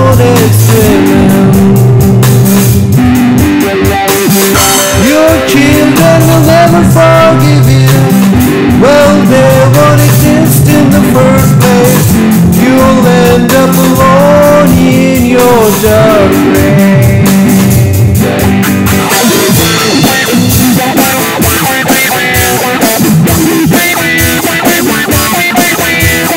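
Rock band playing: electric guitar and drum kit, with a bending lead melody over them for most of the passage. Near the end it thins to guitar and drums.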